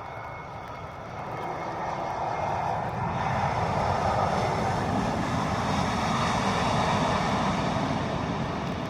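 Airbus A320neo airliner's jet engines passing by: a rushing roar that grows over the first three seconds, stays loud, and begins to fade near the end.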